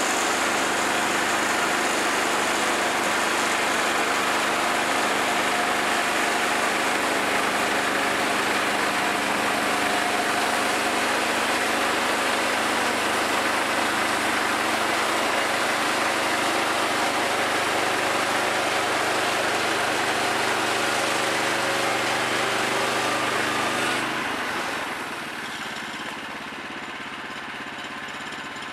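Gas engine of a Woodland Mills portable bandsaw mill running steadily under load while the band blade saws through Douglas fir, a dense hiss over the engine note. About 24 seconds in the cut ends and the sound drops to a quieter, lighter engine note.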